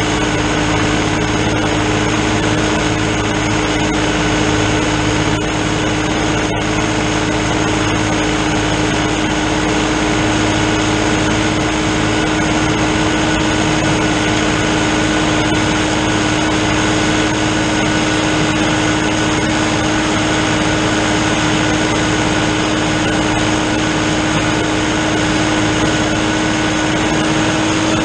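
New Holland TN70 tractor's diesel engine running steadily under load while it drives a drum mower through standing hay, with a constant hum.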